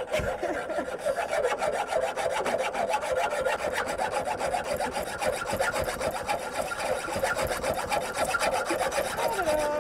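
Hand hacksaw cutting through steel rebar: a continuous rasping scrape of the blade going back and forth, with a wavering metallic squeal over it.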